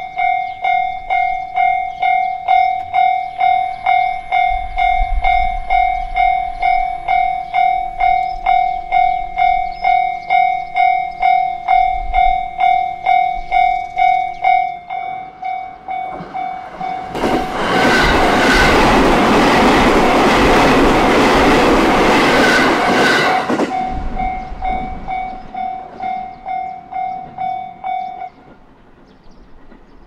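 Japanese level-crossing alarm ringing its repeated electronic clang, a little over two strikes a second, while the crossing is closed. About seventeen seconds in, a JR Narita Line train passes over the crossing with a loud rush of wheel and rail noise lasting about six seconds. The alarm stops a couple of seconds before the end, as the crossing clears.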